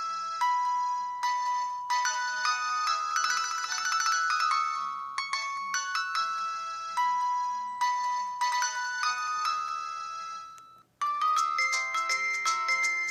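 Default ringtones of an LG VX3450 mobile phone playing through its speaker. A tune of quick notes and chords fades and stops near the end, and after a brief gap a different, faster tune with rising notes begins.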